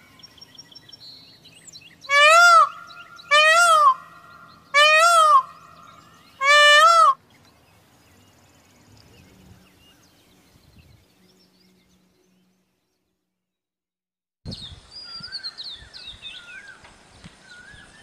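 Indian peacock giving four loud wailing calls about a second apart, each rising then falling in pitch. After a break, small birds twitter and chirp near the end.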